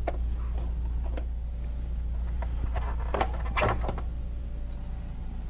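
Hard plastic factory air-intake resonator being unfastened and lifted off the engine by hand: a few scattered clicks, then a cluster of plastic knocks and rattles, loudest about three and a half seconds in, over a steady low hum.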